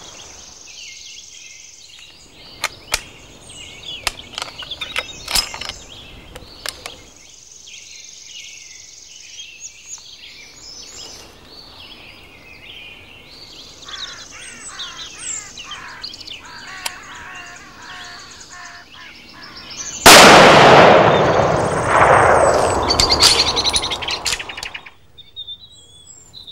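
Woodland birdsong with a few sharp clicks. About twenty seconds in comes a single very loud rifle shot from a deer cull, its sound rolling away over several seconds.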